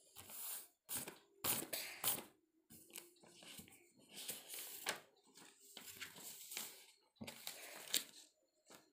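A sheet of paper rustling and crinkling in irregular bursts as hands move and press on it, with sharp crackles among them.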